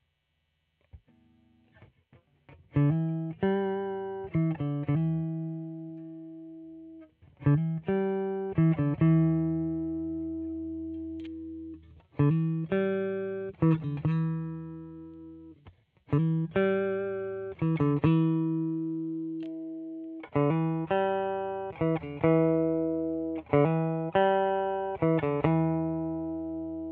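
Amplified electric guitar, a Fender Jazzmaster converted to a 'Jazzblaster', played in six short phrases of picked notes. Each phrase is left to ring out and fade before the next begins.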